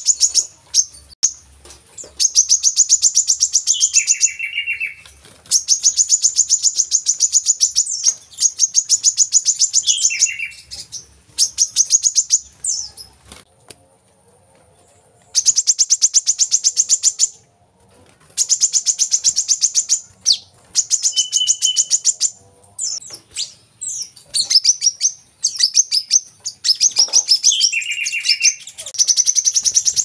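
Brown-throated sunbird (kolibri kelapa) singing in fast, high-pitched trilled phrases of rapidly repeated notes. Each phrase lasts about one and a half to two seconds, with short pauses between them and a longer pause about halfway. Some phrases end in a few lower notes.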